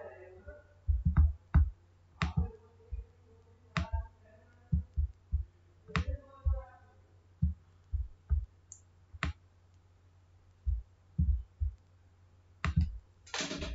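Computer mouse clicking irregularly, a dozen or so single clicks, along with soft low thumps, over a steady low electrical hum.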